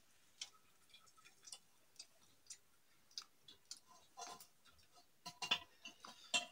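Faint scattered clicks and light clinks of eating by hand from brass plates: fingers mixing and scooping rice against the metal. They come a few to the second and grow busier and louder in the last couple of seconds.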